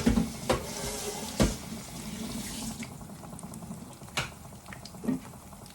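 Kitchen cooking sounds: a steady watery hiss that stops about three seconds in, with several sharp knocks of utensils or pans.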